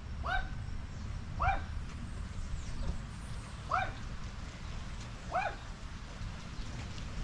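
A dog yipping four times, short high-pitched yaps a second or two apart, over a low steady background rumble.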